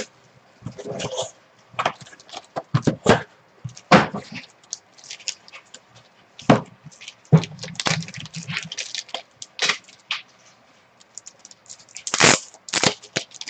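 Black plastic card wrapper crinkling and crackling as it is handled and pulled open, in short irregular bursts, with scattered clicks and taps from a hard clear plastic card case.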